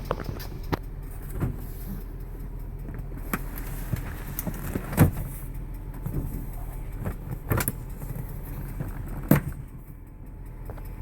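2003 Range Rover's 4.4-litre BMW M62 V8 idling with a ticking noise, which the uploader ties to the hydraulic tappets. Sharp clicks come irregularly over the steady hum, the loudest about five, seven and a half and nine seconds in.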